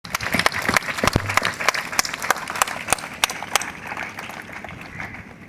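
Audience applauding: many hands clapping, thinning out and fading toward the end.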